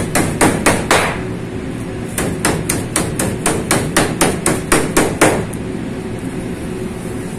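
Metal meat mallet pounding raw chicken breast flat on a plastic cutting board. A few blows, a short pause, then a quick even run of about five blows a second that stops a little after five seconds in.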